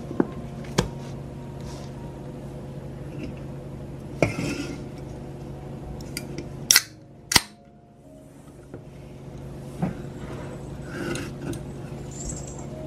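Metal spoon scraping and clinking against a glass tumbler and a plastic ice cream carton as vanilla ice cream is scooped and pressed into the glass. Scattered sharp clinks, the two loudest close together about seven seconds in.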